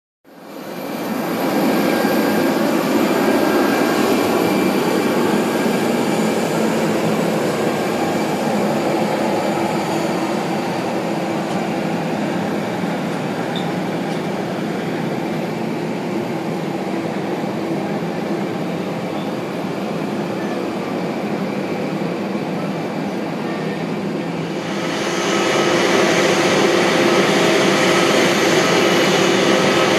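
Steady airport apron noise around a parked airliner: a continuous rumble with a steady whine and several held tones from aircraft and ground equipment. It fades in at the start and grows louder about 25 seconds in.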